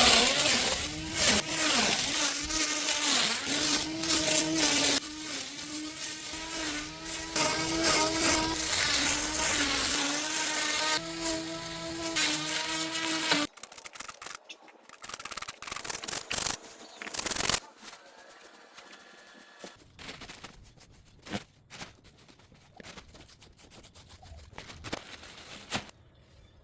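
Cordless electric grass cutter running and cutting grass: a steady motor whine whose pitch wavers with the load, over a dense hiss. It stops about halfway through, leaving a quiet stretch with a few scattered clicks.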